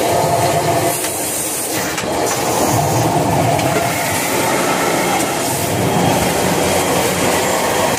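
Toilet paper and kitchen towel roll packaging and wrapping machine running, a loud, steady mechanical clatter.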